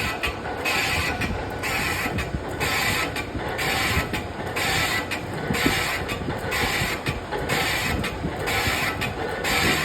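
A lathe runs while turning a cast-iron pump casting. It gives a steady mechanical rumble, and a scraping hiss from the cut swells and fades at an even rhythm, a little faster than once a second.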